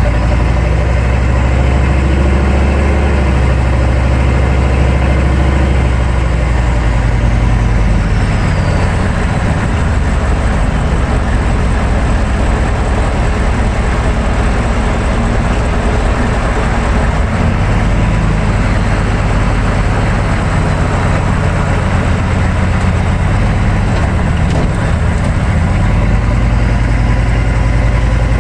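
1999 GMC 3500 pickup on the move, heard from underneath the truck: a loud, steady rush of road and tyre noise over the low drone of its 6.5 turbo diesel. The low drone is strongest at the start and again near the end, and the rushing noise fills the middle stretch.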